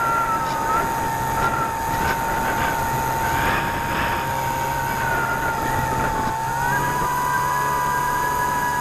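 Electric motor and propeller of an E-flite Apprentice S 15e RC trainer plane whining steadily, heard from its onboard camera with wind rushing over the microphone. The whine steps up slightly in pitch a little over six seconds in, as the throttle opens.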